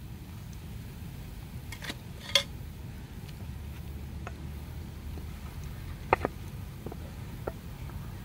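Wooden chopsticks click against a metal mixing bowl while dipping sweet potato slices in batter: a few sharp taps, the loudest about two and a half seconds in and a quick pair about six seconds in. A steady low hum runs underneath.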